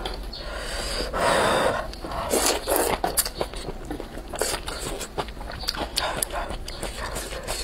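Slurping and chewing of rice noodles in spicy soup, a run of wet noisy slurps with the longest about a second in, mixed with small clicks of chopsticks against the pot.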